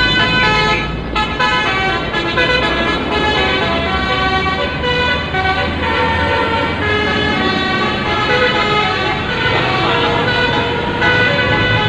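Basuri musical bus horn sounding a run of changing notes over road traffic noise.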